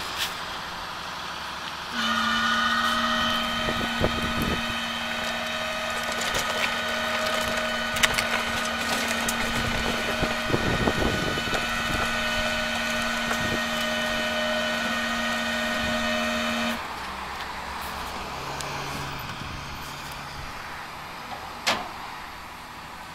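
Flatbed tow truck's winch running with a steady whine as it pulls a wrecked car up the tilted bed. The whine starts suddenly about two seconds in and cuts off suddenly about three-quarters of the way through. A few sharp metallic clanks are heard along the way.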